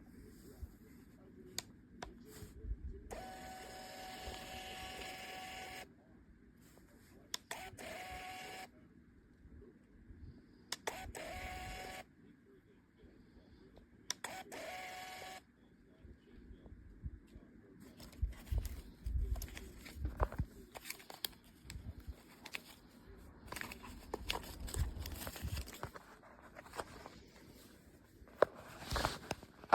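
CLABEL thermal label printer feeding and printing labels: four separate steady motor whirs, the first about three seconds long and the others about a second each. These are followed by irregular knocks and handling noise.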